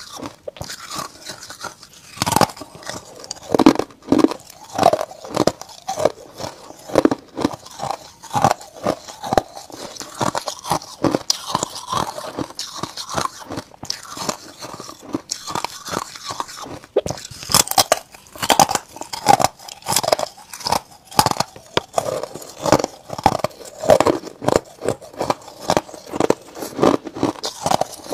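Frost-coated ice discs being bitten and chewed: a dense, irregular run of sharp crunches as the ice breaks between the teeth.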